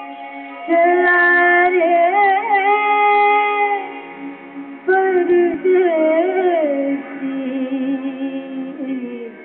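Music with a woman singing: two sung phrases of long held notes with wavering pitch over a steady accompaniment, the first starting just under a second in and the second about five seconds in.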